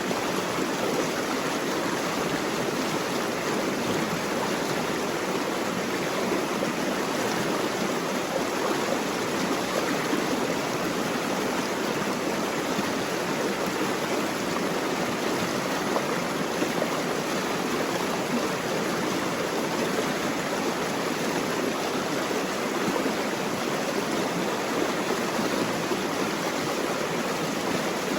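Running water rushing steadily and evenly, with no breaks or separate splashes.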